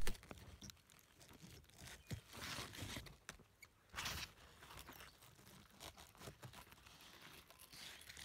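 Faint rustling and crackling of pumpkin vines and leaves being handled, in short bouts, with a few sharp clicks.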